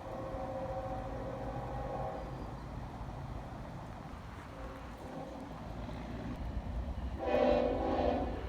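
Locomotive horn sounding a steady multi-note chord for about two and a half seconds, a faint short note about five seconds in, then a louder pair of short blasts near the end, over the low rumble of a moving train.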